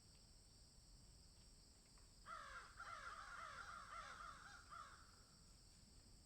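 A bird giving a quick run of about eight arching calls starting about two seconds in and lasting some two and a half seconds, over a steady high hiss.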